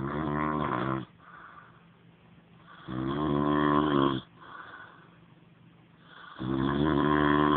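A man snoring: three loud, pitched snores at an even rhythm about every three and a half seconds, each lasting a little over a second, with a softer breath between them.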